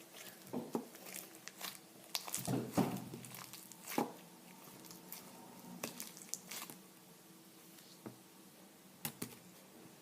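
Slime being handled by hand: faint, scattered squishes and crackly little clicks, with a few sharper ticks.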